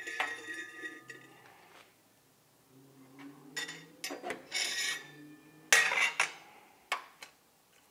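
Metal clinks, scrapes and clatter of a firing fork, trivet and steel mesh rack as a hot enamel piece comes out of the kiln and is set down, then tweezers press on it. A ringing clink opens it, and the loudest clatter comes about six seconds in, followed by a sharp click.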